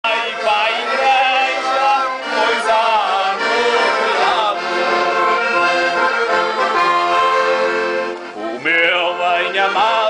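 Accordion playing a lively folk tune, its sustained chords steady throughout, with a man singing along loudly over it.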